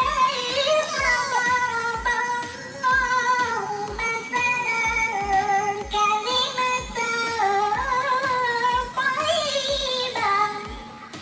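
Background music: a woman's voice singing a melody over a steady low beat of about two thumps a second.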